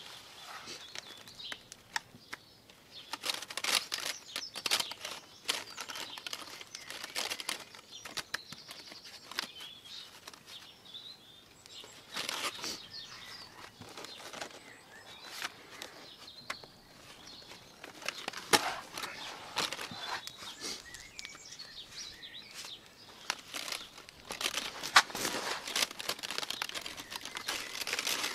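Old, brittle plastic brushes on a Westwood/Countax powered grass collector's brush shaft rustling and clicking as the shaft is handled with gloved hands, in irregular bursts.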